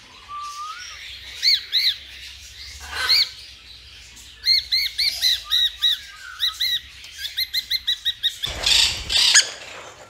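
Parrots chirping: a few single short, arched chirps, then a fast run of them, several a second, from about four and a half seconds in. A brief rushing noise follows near the end.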